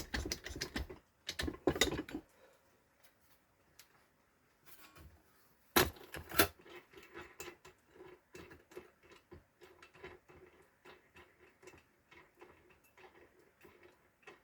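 Rapid clicking of a ratchet spanner tightening a bolt in the first two seconds, then two sharp metal knocks about six seconds in, followed by a long run of light irregular metallic clicks and taps as tools and sockets are handled.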